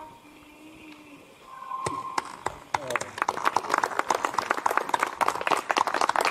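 A small group of people clapping their hands in applause, starting about two seconds in and going on briskly.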